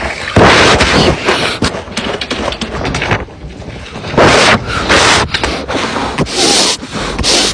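Large water-filled balloon being filled from a garden hose and rubbed and pressed by hands: repeated bursts of rushing, scraping noise, each under a second long.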